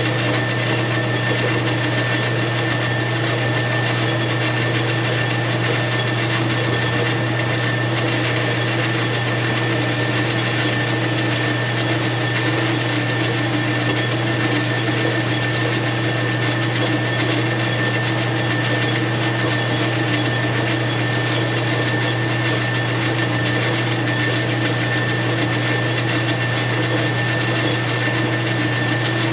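Metal lathe running steadily while turning an aluminium chainsaw piston: a constant motor and gear hum with a thin, steady high whine over it.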